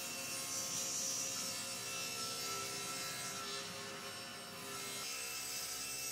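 SawStop table saw ripping a long meranti board lengthwise: a steady motor tone under the hiss of the blade cutting through the wood.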